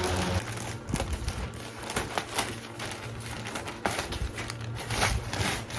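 A cardboard parcel being opened by hand: crackling and rustling of packing tape and cardboard with scattered sharp clicks, busiest about five seconds in.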